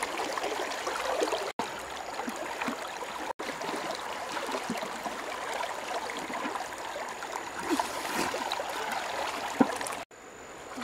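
Shallow river water running and gurgling around a person wading in it, with small splashes as she moves through the water and feels along the bank. The sound drops out briefly three times.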